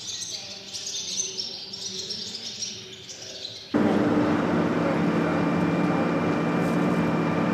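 Swallows twittering at their mud nest, high quick chirps, for the first few seconds. Then an abrupt cut to steady road and engine noise heard from inside a moving vehicle.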